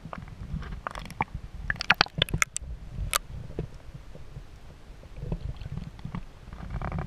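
Shallow sea water sloshing and splashing against an action camera's waterproof housing as it dips under the surface and back up: a muffled low rumble, with a cluster of sharp splashes and clicks about two seconds in and a softer splash near the end.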